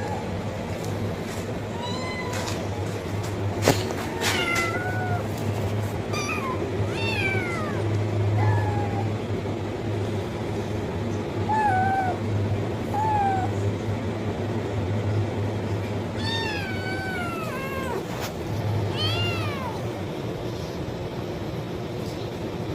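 Kitten meowing for food, over and over: short, high calls that rise and fall in pitch. A steady low hum runs underneath, and there is one sharp click about four seconds in.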